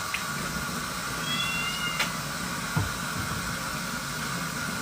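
A kitten mews once, a short high-pitched mew about a second and a half in, over a steady background hiss, with a faint click and a soft knock shortly after.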